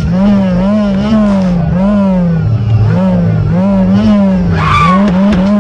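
A loud electronic wailing tone, sweeping up and down in pitch over and over, like a siren or alarm sound effect.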